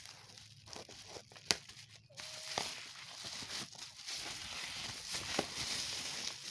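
Packaging being crinkled and torn open by hand: continuous crackling and rustling with a sharp click about one and a half seconds in, getting denser from about two seconds in.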